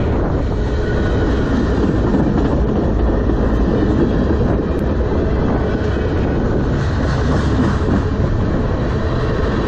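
Freight train cars rolling past at close range: a steady, loud rumble of steel wheels on the rails.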